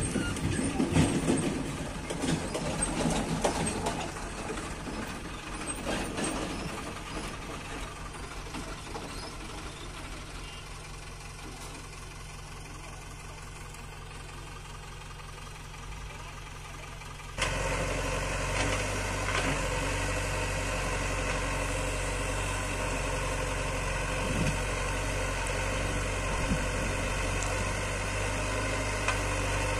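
Diesel engines of a tractor and a JCB backhoe loader running while the backhoe loads soil into the tractor trolley, with irregular knocks and rumble in the first few seconds. About 17 seconds in the sound jumps suddenly to a louder, steady engine hum.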